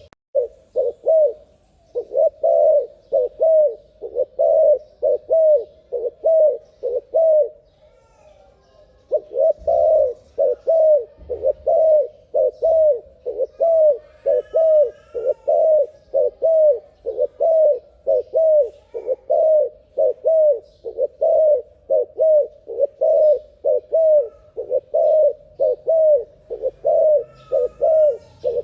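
Turtle dove (terkukur) cooing rapidly and continuously, short notes about twice a second, with a pause of a second or two about eight seconds in. Faint higher bird chirps come in a couple of times.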